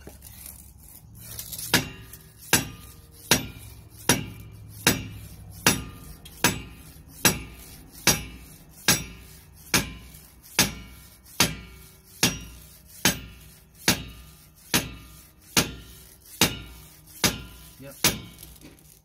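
Rubber mallet striking the base of a steel bottle jack again and again in a steady rhythm, a little more than one blow a second, each knock ringing briefly. The jack is being tapped sideways to bring it back into alignment under the suspension arm.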